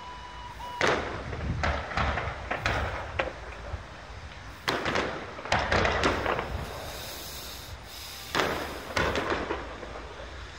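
Fireworks bursting in aerial shells: clusters of sharp bangs and crackling every second or two, with the loudest volleys about one, five and eight and a half seconds in.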